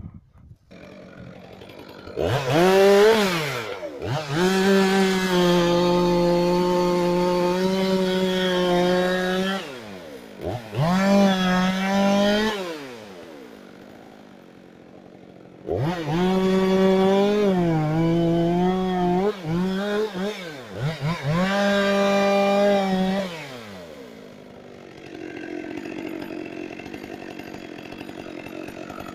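Chainsaw revving up to full throttle and cutting wood in four runs of a few seconds each. It drops back to idle between runs and idles more quietly near the end.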